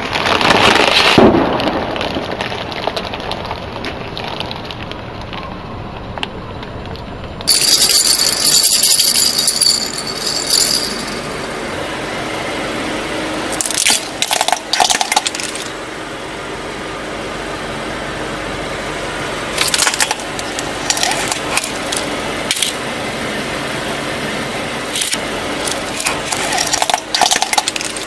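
Car tyre rolling over and crushing small brittle objects: several separate bursts of cracking and crunching, with crackly snapping near the middle and again near the end.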